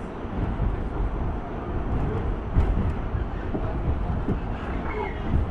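Subway train running, heard from inside the car: a steady low rumble with a few sharp knocks from the wheels and track, the loudest about two and a half seconds in.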